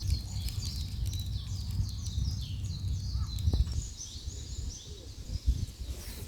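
Small birds chirping quickly and repeatedly in the background over a low outdoor rumble, with a couple of soft knocks.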